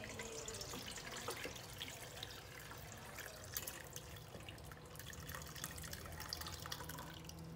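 Brewed herbal liquid poured from a pot through a fine-mesh metal strainer into a stainless steel bowl: a steady trickle of liquid with many small splashes and drips.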